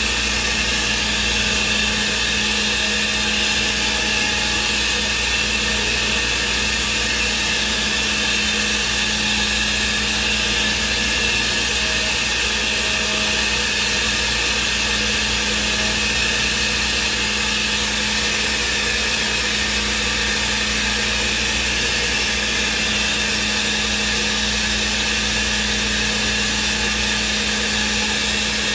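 Thermwood CNC router's spindle running steadily while its cutter mills a block, a constant machine whine and hiss with an even hum underneath.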